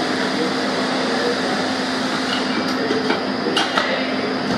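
Steady factory hum and machinery noise. From about halfway in come a few sharp metallic clicks and knocks as an engine's metal crankcase halves are handled and fitted together.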